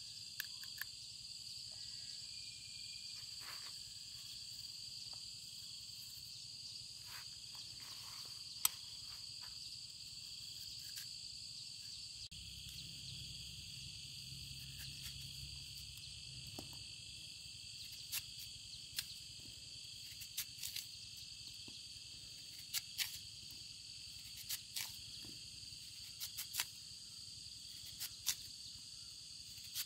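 Insects trilling steadily in the background, with short, scattered clicks and scrapes of a kitchen knife cutting through fresh fruit as it is peeled and sliced by hand. The clicks come more often in the second half.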